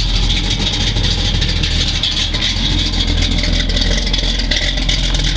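1968 Pontiac Firebird's 406 cubic-inch V8, a 400 bored .030 over, idling steadily at about 600 rpm with Flowmaster mufflers.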